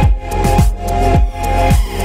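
Electronic music with a steady kick-drum beat, about two beats a second, under sustained synth tones.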